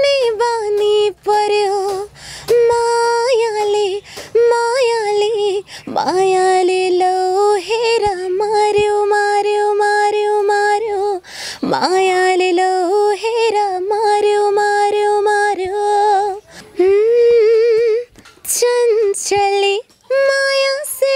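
A young woman singing unaccompanied into a microphone, holding long notes with wavering ornaments, with short breaks between phrases.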